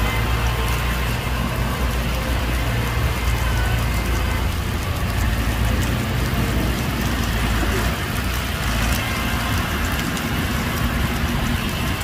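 A heavy diesel engine running steadily, with rain falling.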